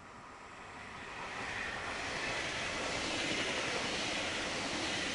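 Push-pull passenger train, a cab control car and a rake of coaches, passing close by on the near track. The wheel-on-rail rolling noise swells over the first second and a half as the train approaches, then holds as a steady rush while the coaches go by.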